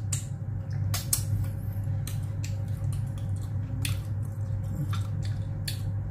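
Several short, wet mouth smacks and sucks as sauce-covered fingers are licked clean, over a steady low hum.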